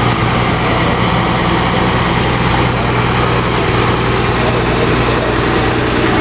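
Engine of a military cargo truck running with a steady low drone as it drives slowly past close by.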